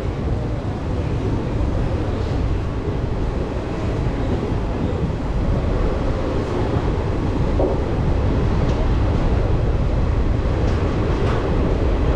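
Steady rumble of a moving passenger train heard from inside an ICF coach, with a few faint clicks along the way.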